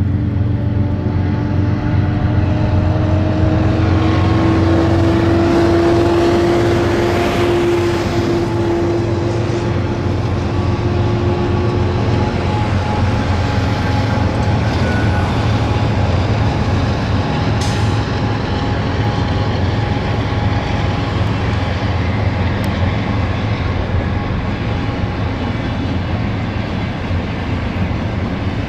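BNSF diesel-electric locomotives hauling a double-stack intermodal freight train pass by: a steady low engine drone with a faint whine over the rumble of wheels and cars on the rails. It is loudest in the first third and fades slowly after.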